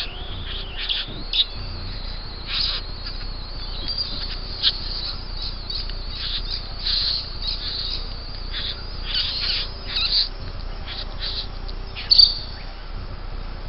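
Birds calling around the bower: a busy scatter of short, high chirps and calls, some a little drawn out, with two louder calls close together near the end.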